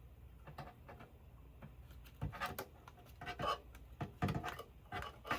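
Irregular clicks and short scraping rustles as an 8-inch HannStar LCD panel is pushed little by little out of its outer case. The loudest clusters come about two, three and a half, and four seconds in.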